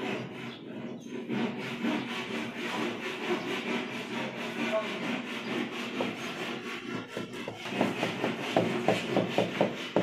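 Ceramic wall tile being pressed and slid into a bed of wet sand-cement mortar, a continuous rubbing and scraping. From about eight seconds in, a rubber mallet taps the tile in, about three or four sharp taps a second.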